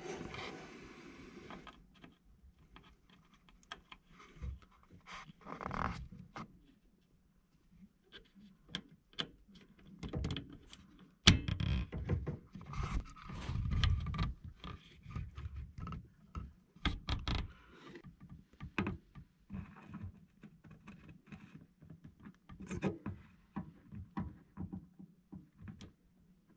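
Scattered small clicks, taps and scrapes of an M.2 drive being fitted into its motherboard slot and a screwdriver working at its retaining screw, with one sharp click about eleven seconds in.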